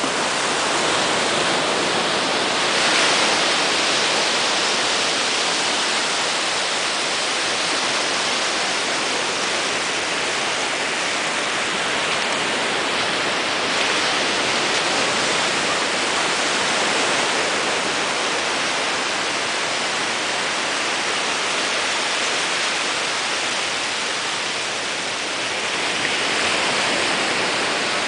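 Small ocean waves breaking and washing into the shallows: a steady hiss of surf that swells a little about three seconds in and again near the end.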